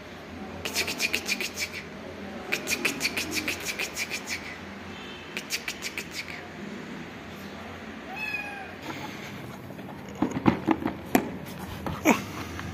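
A kitten meows once, a short call about eight seconds in, after runs of rapid clicking. A few sharp knocks follow near the end.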